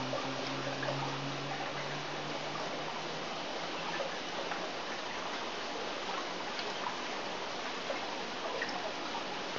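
Steady trickle and splash of water circulating through fish-tank filters, with small scattered ticks. A low hum fades out within about the first two seconds.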